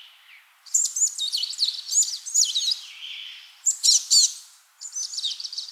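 Small birds singing in three bouts of quick, high, warbling chirps and trills, each lasting one to two seconds, with short pauses between them.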